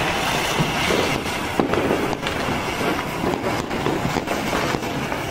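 Fireworks and firecrackers going off: a continuous crackle with irregular sharp pops and bangs.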